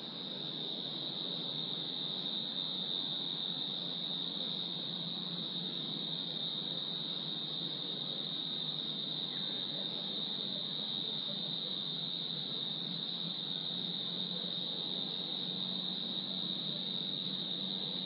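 Crickets trilling in a steady, unbroken chorus, a high continuous note over a low, even background hum.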